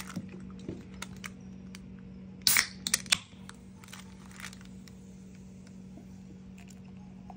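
An aluminium beer can cracked open by its pull tab: a sharp snap and short hiss about two and a half seconds in, followed by a few quick clicks of the tab. Light crinkling of paper before it.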